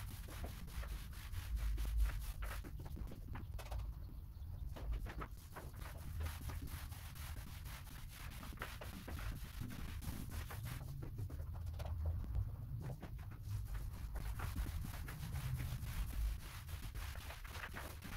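Paint roller on an extension pole rolling a first coat of white paint across a ceiling: a continuous rubbing with many fine ticks.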